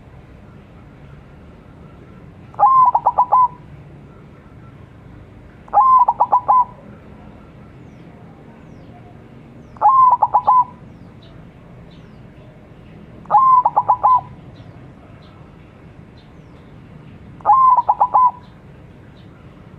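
Zebra dove (perkutut), a white barred bird, singing its cooing song: five short phrases, each a quick run of notes ending in a coo, repeated every three to four seconds.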